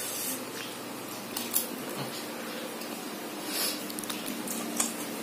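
Quiet eating sounds: a spoon scraping and tapping on a plate of rice, with a few light clicks over a faint steady hum.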